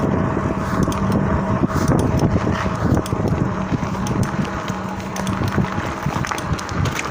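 Lankeleisi MG600 Plus electric bike with a very audible clicking from the crankset, irregular sharp clicks over low rolling and wind noise, with a steady low hum that stops near the end. The clicking came from dry crank and pedal bearings and was cured by lubricating them.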